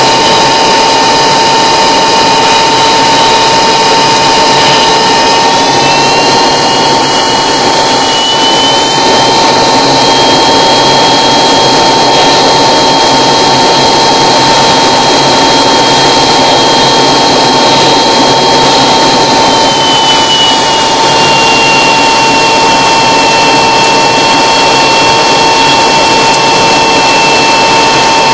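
Aircraft engine running loudly, heard from inside the cockpit while taxiing: a steady noise with a high whine that rises a few seconds in, holds, and falls back about twenty seconds in.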